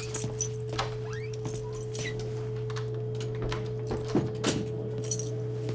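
A steady, held pure tone over a low hum, with scattered light clicks and knocks.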